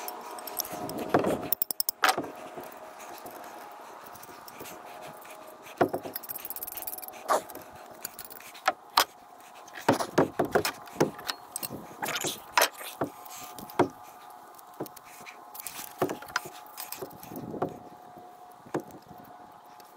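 Scattered knocks, taps and light clinks of hands-on work, irregular rather than rhythmic, over a steady background hum.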